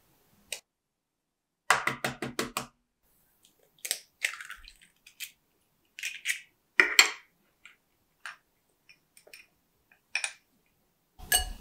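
Kitchen handling sounds over a glass mixing bowl: a quick run of about six clicks about two seconds in, then an egg cracked and its shell pulled open over the bowl, with small taps, and near the end cocoa and sugar tipped in from a small cup.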